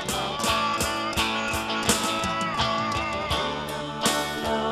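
Live band music with guitar playing over a steady beat, in an instrumental passage between sung lines.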